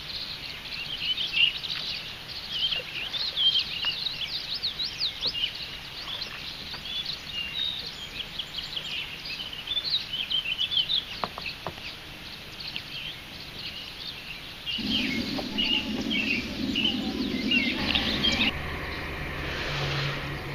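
Many marsh birds calling at once, a dense chorus of short, high chirps and quick sliding notes overlapping. A low rushing noise joins at about 15 s for a few seconds, and a steady low hum comes in near the end.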